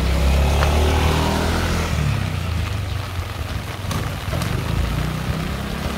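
A motor vehicle's engine running close by, loudest in the first two seconds and then fading as it moves away, over the steady hiss of falling rain.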